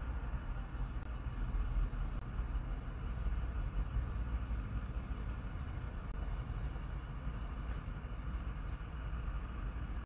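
Steady low rumble with a faint hiss, like a motor or engine running.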